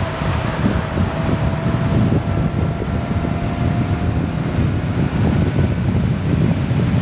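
Steady wind rush over the microphone and road noise while riding a Honda Gold Wing DCT motorcycle at road speed, with a faint steady hum underneath.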